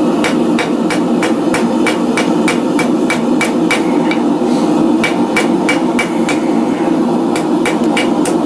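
Hand hammer striking a hot steel bar on an anvil, about three blows a second with a brief pause around the middle, each blow ringing. A steady rush from the running forge sits underneath.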